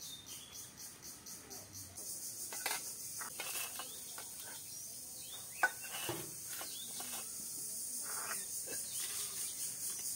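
Insects chirping in a steady, evenly pulsing high chorus, with scattered light clinks and scrapes of steel plates and bowls as people eat by hand; one sharper clink a little past halfway.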